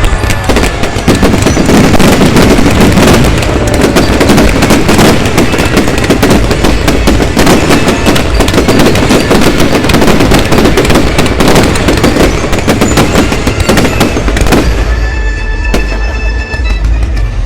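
Fireworks display: a dense, continuous barrage of bangs and crackles, easing slightly near the end.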